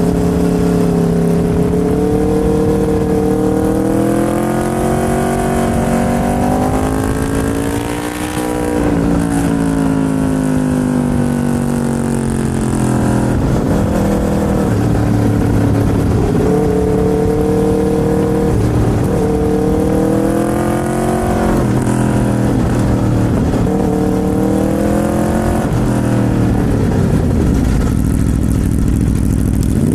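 Aprilia RSV4 V4 engine under way, pulling through the gears. The engine note climbs steadily for the first several seconds and drops off briefly about eight seconds in. It then rises and falls again with several gear changes.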